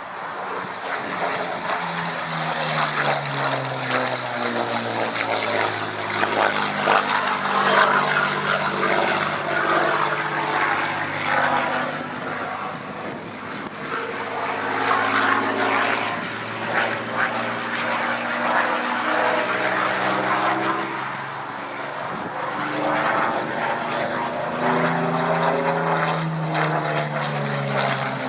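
Supermarine Spitfire's V12 piston engine and propeller in a low flypast. The engine note swells and fades several times as the plane passes, its pitch dropping each time it goes by.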